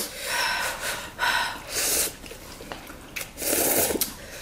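A person slurping spicy instant noodles: three breathy, hissing sucks of noodles and air, each under a second long.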